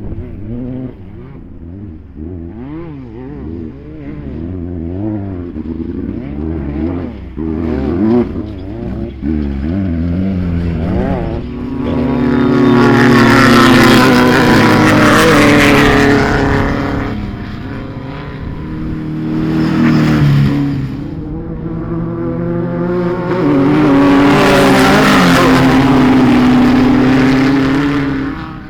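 Racing UTVs (side-by-sides) with engines revving up and down as they work around the course. Then there are two loud close passes, about halfway through and again near the end, each building and then fading away.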